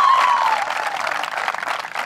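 Crowd applauding, with high wavering cheers from the spectators that trail off within the first second.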